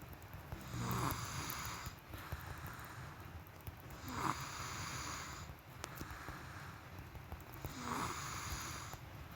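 A sleeping person snoring: three snoring breaths, about one every three and a half seconds, with quieter breathing in between.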